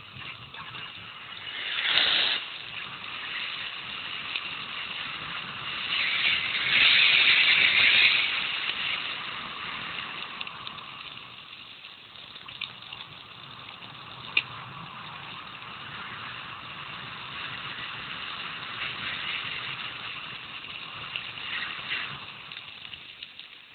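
Mountain bike rolling downhill on a gravel road: a steady rush of tyre crunch and wind on the microphone with light rattling, swelling louder briefly about two seconds in and again for a couple of seconds around the middle.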